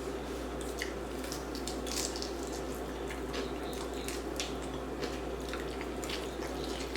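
A person chewing crispy dry-rub chicken wings: a run of small crunches and wet mouth clicks.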